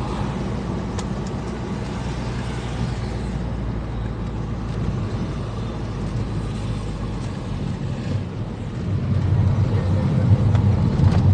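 A car driving, heard from inside: a steady engine and road rumble that grows louder near the end.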